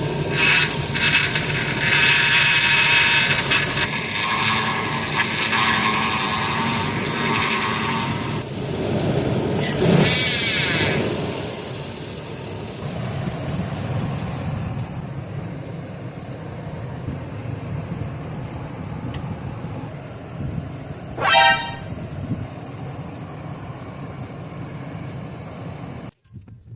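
2005 Hummer H2's 6.0-litre V8 running after a start, carrying the abnormal noise its owner is chasing. A shifting high whine sits over the engine for the first several seconds, and a brief sharp pitched chirp comes about two-thirds of the way through.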